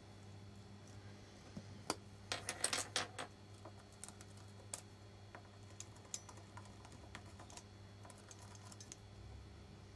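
Light clicks and taps of a knife and its wooden handle scales being handled on a wooden workbench while the wood is marked with a ballpoint pen. There is a quick cluster of them about two to three seconds in, then scattered faint ticks, over a low steady hum.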